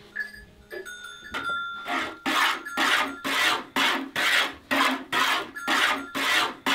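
Cow being milked by hand into a plastic bucket: jets of milk hiss into the pail in even strokes, about two a second, starting about a second and a half in.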